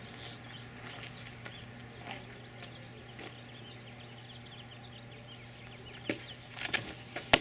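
Small birds chirping over a steady low hum; near the end two sharp smacks about a second apart, the louder second one a 58 mph softball fastball popping into the catcher's mitt.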